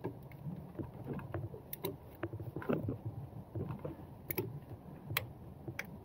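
Small hand ratchet with a Torx bit working a bolt on a Cummins fuel control actuator: faint, irregular metallic clicks over the rustle of hands among the wiring looms.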